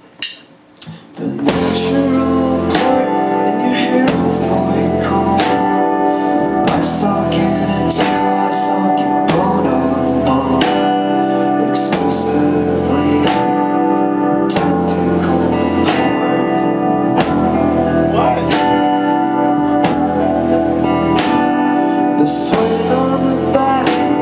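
Live rock band of electric guitar, bass guitar and drums coming in together about a second and a half in, then playing a song at a steady beat with a man singing.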